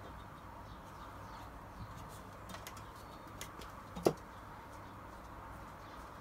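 Small clicks and taps of metal parts being handled on a Toyota 4AGE engine's top end, a few faint ones and one sharp, louder click about four seconds in.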